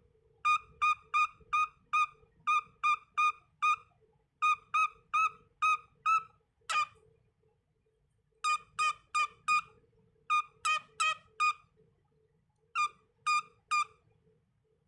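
Cockatiel whistling runs of short, clear repeated notes, about four a second in bursts of four to seven with pauses between, and one sharp chirp about seven seconds in.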